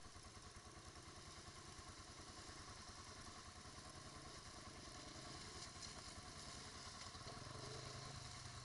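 Quad bike (ATV) engine running at low revs: a faint, even low pulse that grows slightly louder near the end.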